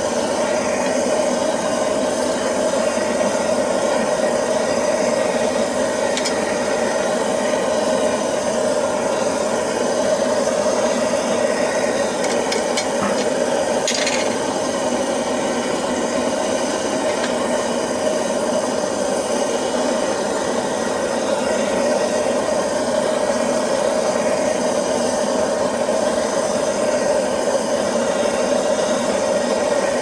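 Homemade waste-oil burner, fed by compressed air, firing a melting furnace: an even, unbroken rushing noise. A couple of faint clicks come through, about 6 and 14 seconds in.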